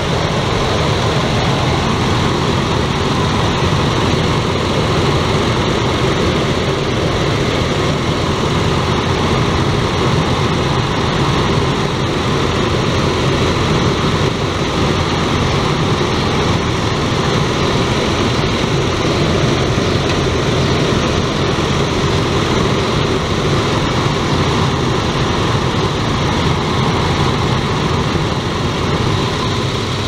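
1999 Ford Explorer's 4.0L SOHC V6 idling steadily, heard up close under the open hood. It has the rough idle that the owner traces to a vacuum leak.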